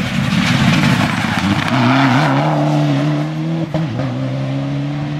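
Rally car at full throttle, approaching and passing at speed. A loud, steady engine note is heard over road and tyre noise, with a short break in the note about three and a half seconds in.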